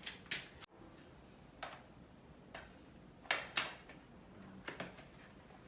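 Scattered sharp clicks and light knocks from bicycle parts being handled as a rear wheel is fitted, about eight in all, the loudest a pair about three and a half seconds in.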